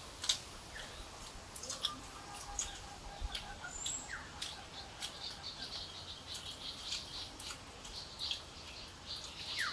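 Soft scattered clicks and smacks of people eating rice by hand from banana-leaf plates, with a couple of short falling bird chirps.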